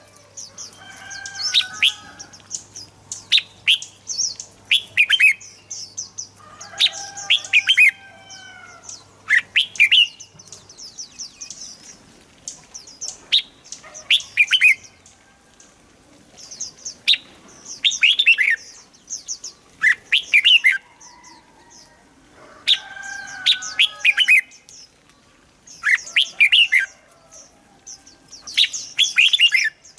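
Red-whiskered bulbul singing: short, quick, bright phrases of whistled notes repeated every two to three seconds, with brief pauses between them.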